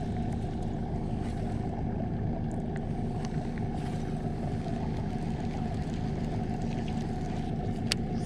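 Steady low hum of a boat motor running, with a few faint ticks and one sharp click near the end.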